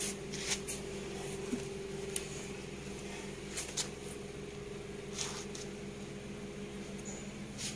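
A steady low hum with a few light clicks and rustles scattered through it.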